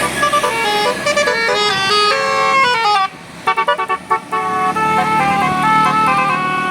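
Indonesian bus telolet horn, a multi-tone musical air horn, playing a tune of stepped notes. About three seconds in it breaks into a run of short quick toots, then the tune goes on.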